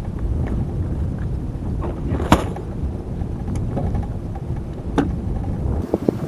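Steady low rumbling noise on a fishing boat, with a few sharp clicks or knocks, the loudest a little over two seconds in.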